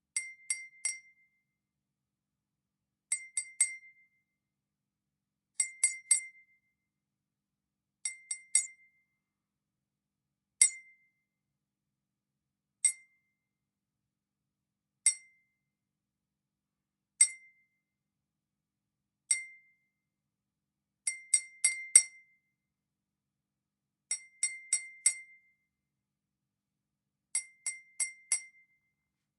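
A drinking glass tapped with a metal fork, ringing with a bright ding at one pitch. The taps come in quick runs of three or four, then as single taps about two seconds apart in the middle, then in runs again.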